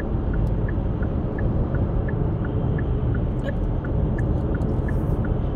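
Car turn-signal indicator ticking evenly, about three clicks a second in an alternating tick-tock, over the steady low rumble of the car's engine heard inside the cabin.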